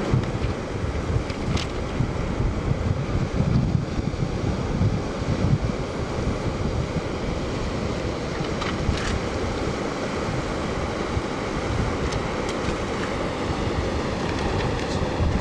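Wind buffeting the microphone in uneven gusts over the steady wash of small waves breaking on a sand beach.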